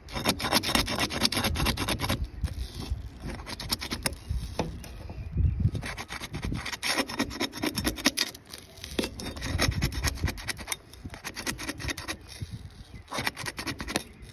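Flat steel pry bar scraping and rasping against the gritty surface of 3-tab asphalt shingles in several bouts with short pauses, as it is worked under a shingle tab to break the adhesive seal strip.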